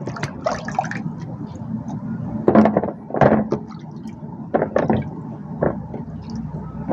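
Hands sloshing and splashing vegetables about in a plastic tub of water as they are washed, in short irregular splashes over a steady low background hum.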